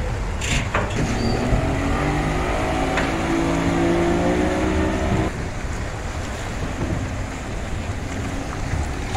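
Outboard motors of small passenger boats running, one of them speeding up with a slightly rising pitch, then dropping off abruptly about five seconds in to leave a lower, fainter engine hum. Water and wind noise run underneath.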